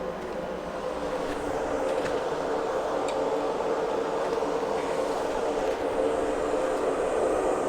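Steady rushing air and fan noise with a low hum from microsoldering heating equipment, slowly getting a little louder, while the stacked iPhone motherboard halves are heated to reflow them together.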